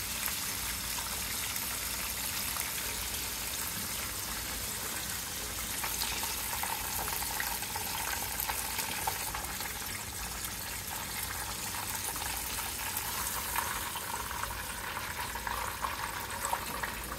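Chicken pieces deep-frying in hot oil in a cast-iron skillet: a steady sizzle with fine crackling, the oil turned up high to sear the chicken at the end of its cook.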